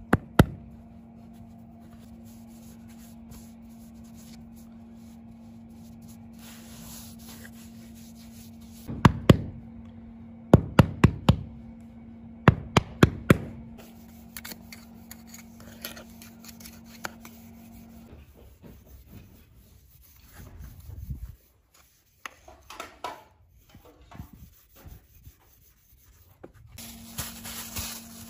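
Damp sand being packed and smoothed around an upside-down frying pan to make a sand mould: hands pressing and a metal trowel scraping over the sand. Several quick runs of sharp knocks come in the middle, and a steady low hum stops about two-thirds of the way through and returns near the end.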